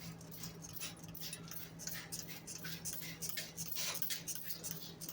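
Trigger spray bottle squirting cleaning chemical inside a refrigerator: repeated short hissing squirts at an irregular pace, over a steady low hum.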